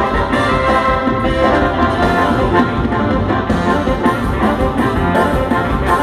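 Tierra Caliente band playing an instrumental passage led by brass, trumpets and trombone, over a steady drum beat.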